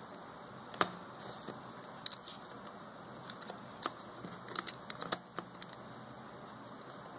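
Small sharp clicks and taps of a Microsoft 535 phone's mainboard and plastic frame being handled, as the board is picked up off a wooden bench and fitted into the frame, over a steady faint hiss. The loudest click comes about a second in, and a quick cluster of clicks comes around the middle.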